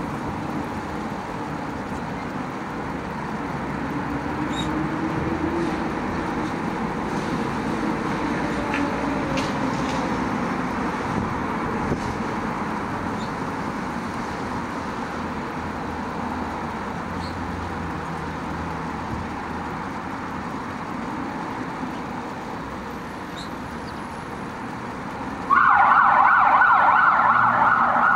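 Steady background hum of road traffic. Near the end a much louder sound starts suddenly and holds.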